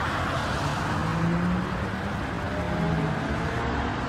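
Porsche 911's flat-six engine running at low revs as the car rolls slowly by, its pitch rising and dipping slightly.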